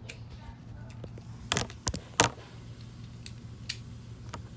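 Hard plastic Beyblade parts and launcher being handled: three loud sharp clacks close together about a second and a half in, then a few fainter clicks, over a low steady hum.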